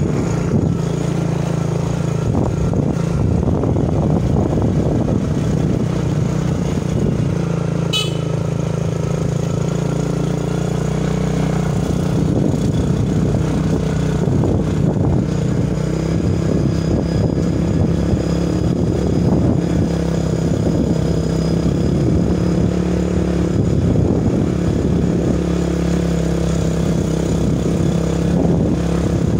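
Motorcycle engine running steadily at cruising speed while riding, with one sharp click about eight seconds in.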